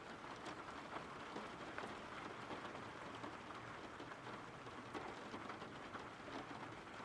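Steady rain falling, a soft even hiss dotted with the faint patter of single drops.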